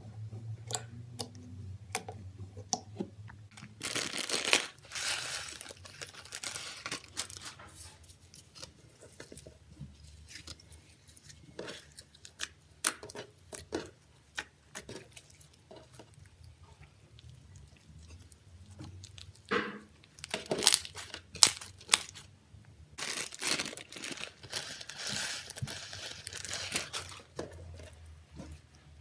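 Crunchy clear slime packed with slushy beads being squeezed, stretched and pressed by hand, giving a stream of crackling, crunching clicks, with denser stretches of crunching about four seconds in and again from about twenty seconds in.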